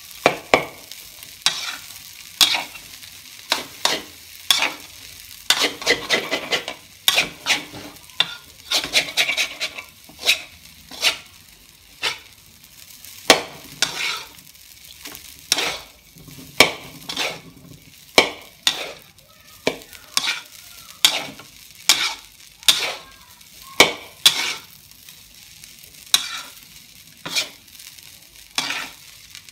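Metal spatula scraping and clanking against a steel wok as fried rice is stir-fried, in sharp strokes about one to two a second, over a steady sizzle of the frying rice.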